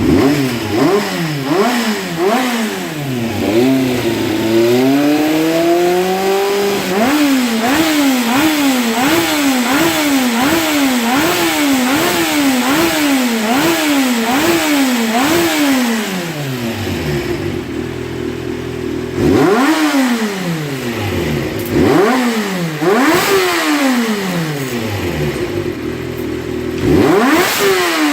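Honda CBX400F's air-cooled inline-four engine being revved on rebuilt high-rev-spec carburetors. First it is blipped quickly, the revs climbing and dropping about once a second; then it settles to an idle broken by a few sharp revs, showing crisp throttle response.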